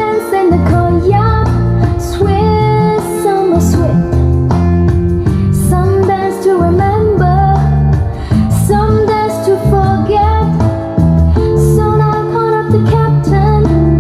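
A song with a woman singing over a strong bass line, played back through a DIY videoke speaker system as a vocal sound test.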